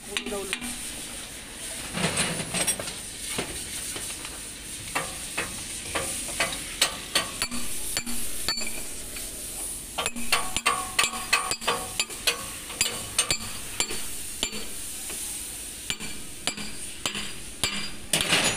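Irregular sharp clicks and knocks, metal on metal, over a steady hiss, from work on a boom truck's hydraulic cylinder mounting.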